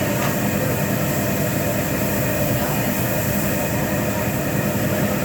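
Steady restaurant din at a hibachi grill: a constant mechanical hum and hiss with no breaks, with faint talk.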